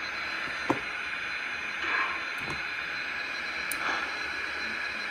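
Steady hiss from a stationary Lionel Vision Line GS-4 O-gauge model steam locomotive with its smoke units running, with a few faint clicks.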